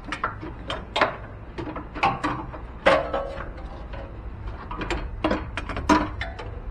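Irregular metal clanks and knocks as an air-conditioning refrigerant line is worked loose and pulled out of a car's engine bay, knocking against the surrounding parts.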